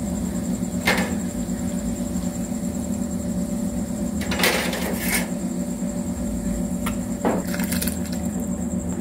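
Steady low hum with a few short taps and clicks: a small ladle of tempering spices knocking against a metal cooking pot. The clicks come about a second in, twice around four and a half to five seconds, and again near the end as the seasoning is tipped into the rasam.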